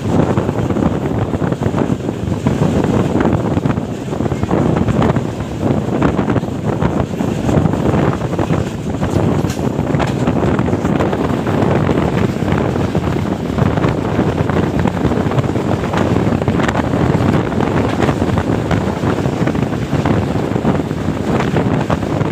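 Passenger train running, heard from on board: a steady rumble with wind buffeting the microphone and scattered light clicks.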